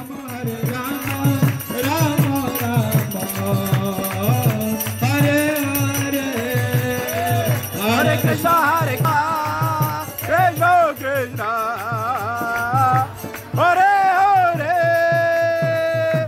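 Devotional kirtan: voices chanting a melodic mantra over percussion that keeps a steady beat.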